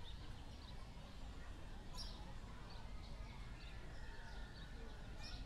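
Faint outdoor ambience: a steady low rumble with scattered small bird chirps, and two brief sharp clicks, one about two seconds in and one near the end.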